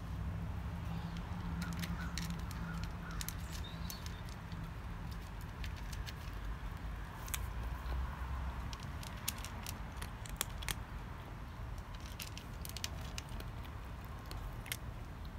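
A cat crunching dry kibble: irregular sharp little crunches, more frequent in the second half, over a steady low background hum.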